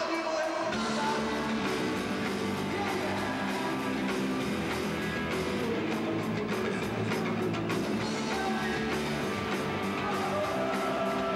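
A rock band playing live, with guitar to the fore and a voice singing over it.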